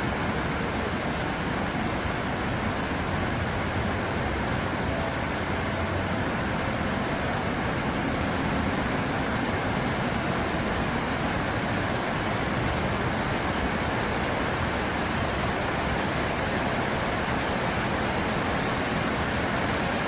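Steady rushing and splashing of a ring of vertical fountain jets falling back into the basin.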